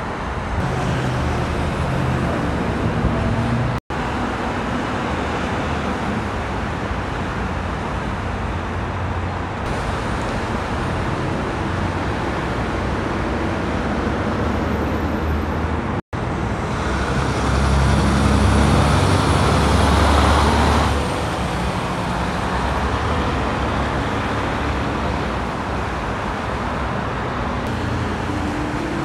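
Steady freeway traffic noise: tyres and engines of cars and trucks passing on a multi-lane highway. A louder, deeper rumble swells from about 17 to 21 seconds in. The sound cuts out for an instant twice.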